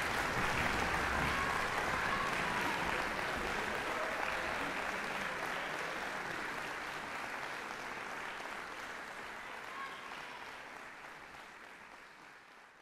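Concert-hall audience applauding steadily, the applause fading away toward the end.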